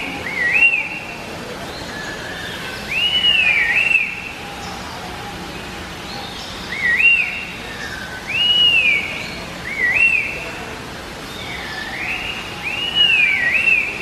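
A laughingthrush singing loud, clear whistled phrases, each a looping note that rises and falls, repeated every two to three seconds, with softer, lower notes in between.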